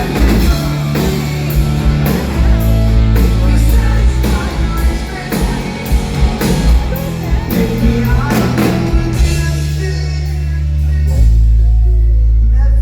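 Live rock band playing guitars, bass and drums, with singing over the top. The drum hits stop about ten seconds in and a low held chord rings on near the end.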